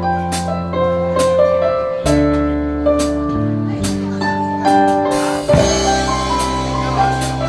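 Instrumental intro of a pop ballad backing track: a keyboard melody over sustained bass notes, with a steady drum beat and a cymbal stroke about once a second.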